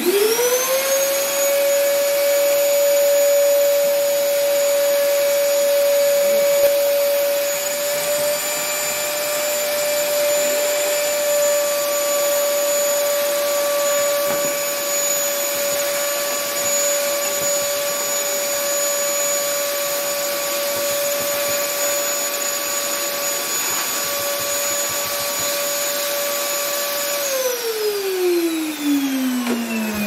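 Vacuum cleaner motor spinning up with a quickly rising whine, then running steadily as its metal wand sucks stagnant water out of a refrigerator's evaporator drip pan. The whine falls away as it winds down near the end.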